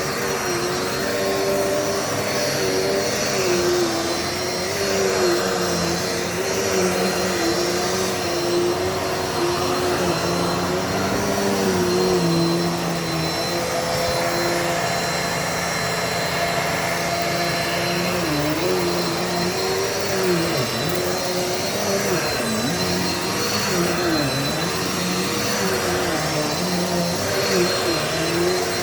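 Dirt Devil Multi-Surface vacuum cleaner running steadily, its motor a constant whine whose pitch wavers and dips briefly now and then, more often in the second half.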